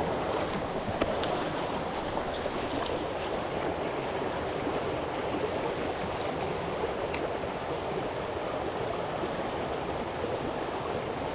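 Mountain stream flowing over rocks, a steady rush of water.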